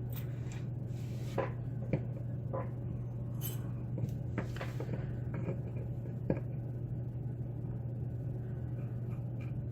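Scattered light metallic clicks and taps of a pin-tumbler lock and picking tools being handled as the lock is prepared for disassembly. A steady low hum lies underneath.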